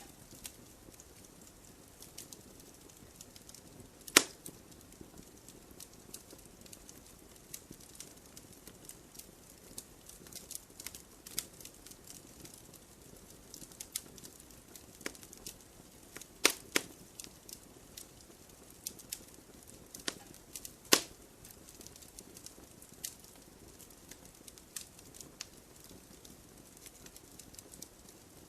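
Campfire crackling: a faint steady hiss with irregular small snaps and a few sharp, louder pops from the burning wood.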